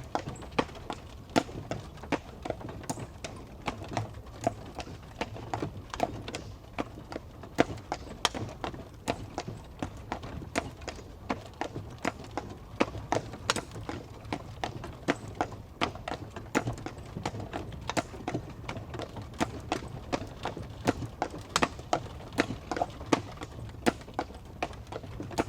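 Horse hooves clip-clopping on a hard surface, several sharp strikes a second in an uneven rhythm, over a steady low rumble as of a horse-drawn carriage.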